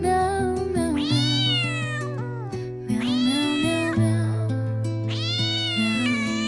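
A cat meowing three times, each a long meow that rises then falls in pitch, over gentle background music.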